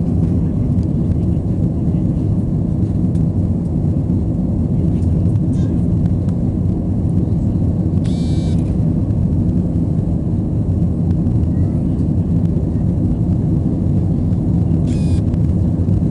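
Steady low drone of an airliner's engines and airflow, heard inside the cabin during the climb after takeoff. Two short higher-pitched sounds come in over it, about eight and fifteen seconds in.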